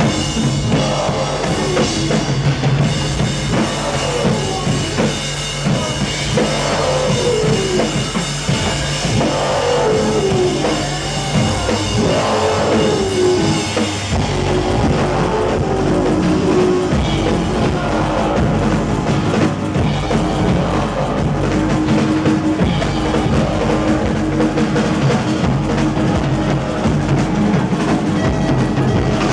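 Live band playing loud music: a drum kit under electronic sounds. Repeated downward-gliding tones run through the first half, then give way to held tones over a changed bass line.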